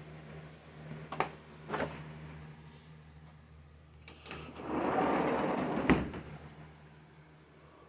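Handling noise: a few sharp clicks and knocks, then a louder scraping, sliding rub about five seconds in that ends in a sharp click.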